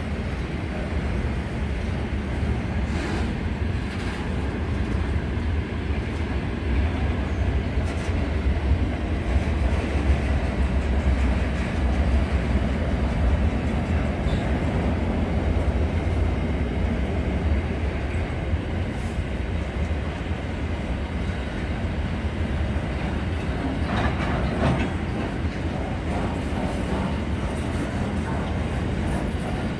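Freight train of container wagons passing: a steady low rumble of wagons and wheels on the rails, with a few sharper clacks scattered through it.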